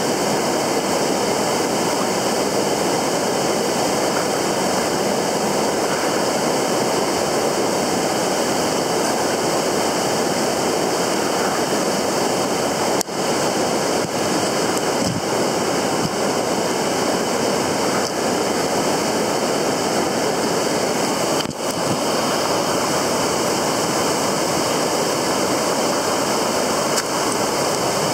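Steady rush of river water running over rocks, an even hiss that briefly dips twice.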